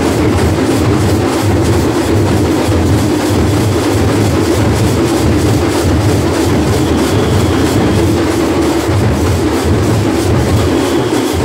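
Loud, harsh-sounding live percussion music with a fast, steady beat, playing for a group folk dance.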